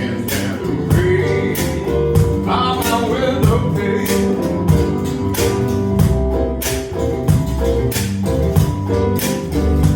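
A small band playing live: strummed guitar with a steady rhythm of sharp strokes, and a voice singing for a few seconds early on before the instruments carry on alone.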